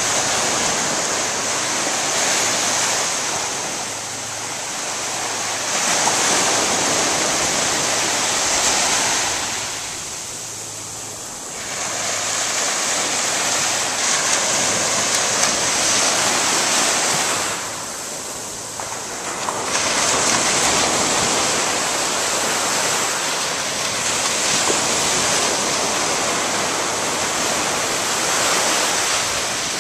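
Small ocean surf breaking close by and washing up the sand, a steady rush that swells with each wave and eases off in between, with longer lulls near the middle of the stretch.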